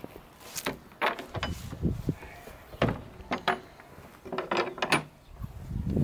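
Footsteps on gravel and grass, then the iron latch of an old wooden door clicking and rattling as it is unhooked and the door is pulled open.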